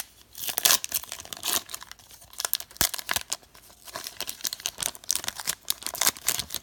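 Foil wrappers of trading-card packs crinkling and tearing in the hands as packs are ripped open, in irregular rustling flurries.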